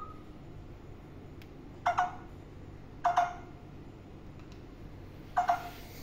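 Alexandrine parakeet giving three short, loud calls, the second about a second after the first and the third about two seconds after that.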